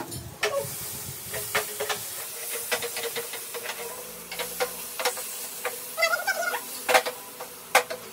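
A thick mixture sizzling in a frying pan on a gas stove, with a steady hiss, while a spatula stirs and scrapes it, giving many sharp knocks and clicks against the pan; the loudest knocks come near the end.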